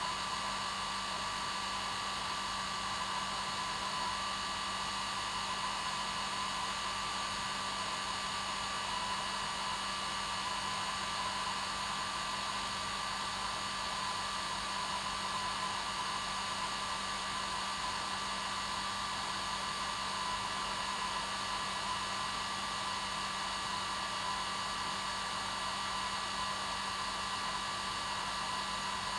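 Hair dryer running steadily on its normal setting: an even, unbroken blowing hiss with a constant motor hum and whine.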